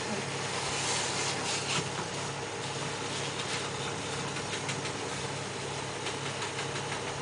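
Steady running hum of engine-driven equipment, with a few light knocks and clatter from the work about a second or two in.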